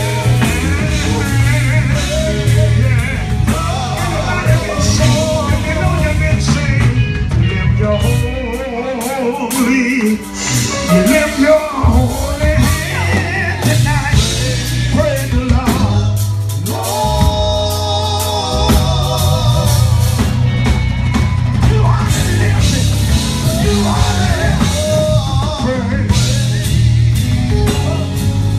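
Live gospel band playing: drum kit, keyboard and electric guitar backing group singing. The bass and drums drop out for a couple of seconds about eight seconds in, then come back in.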